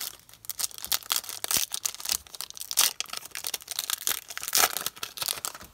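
Foil wrapper of a Yu-Gi-Oh trading-card booster pack being torn open and crinkled by hand: a dense, irregular crackling that dies away just before the end.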